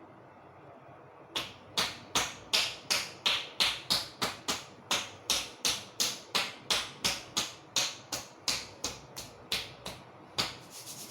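Rapid, even slaps of a hand on the body during a massage, about three a second, starting about a second and a half in and stopping shortly before the end.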